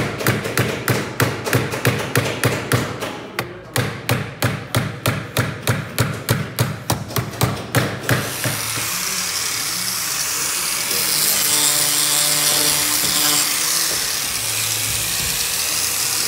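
Quick hammer blows on the metal edge of a car's windshield frame, about three a second with a brief pause. About eight seconds in they stop and an angle grinder starts and runs steadily, grinding away excess so a thicker 22 mm armored windshield can seat.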